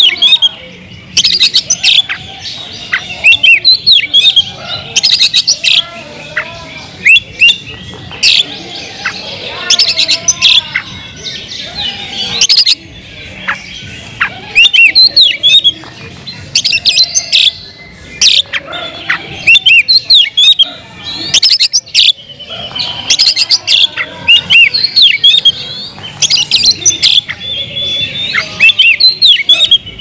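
Oriental magpie-robin singing a busy, nearly continuous song of rapid, varied whistles, chatters and sharp clicking notes in loud bouts, with only short pauses.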